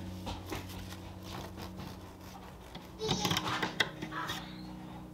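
Serrated bread knife sawing through a brown loaf, a short rasping stroke every fraction of a second, over a steady low hum. About three seconds in, a young child's voice cuts in.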